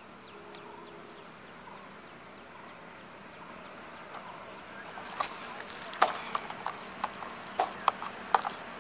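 A few seconds of quiet background hiss, then about halfway through a run of irregular sharp plastic clicks and taps as the mosquito killer's plastic housing is handled and its orange catch tray is slid out.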